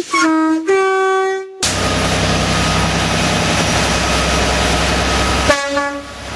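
British train's two-tone horn sounding a low note, then a higher held note. It cuts off suddenly into the loud, steady rush and deep rumble of a train passing close by, and a short low horn note sounds near the end.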